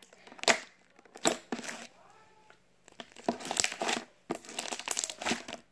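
Crunchy homemade slime being poked and squeezed by hand, giving crackling crunches: a few sharp ones early, a quiet pause in the middle, then quick runs of crackles through the second half.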